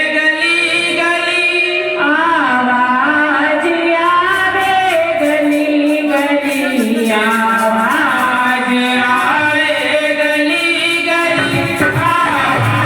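Hindi devotional bhajan music: a gliding melody with singing, joined about four seconds in by a steady light percussion beat.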